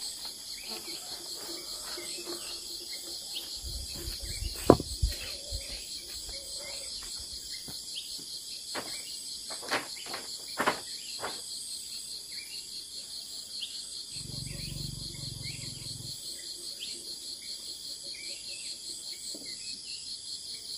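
A steady, shrill chorus of insects, pulsing finely and without pause. Over it come a few sharp clicks and knocks, the loudest about a quarter of the way in and more a little before halfway, and a short low rumble a bit past the middle.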